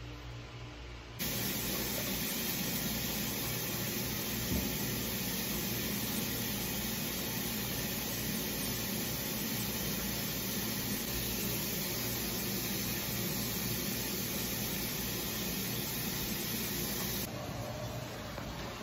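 Water from a bathroom sink's mixer tap running in a steady stream into the basin, starting about a second in and shut off abruptly near the end.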